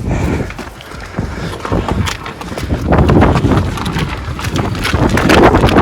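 A 1997 Honda Civic hatchback being pushed by hand: tyres rolling over the ground with quick footsteps and wind buffeting the microphone, getting louder about halfway through.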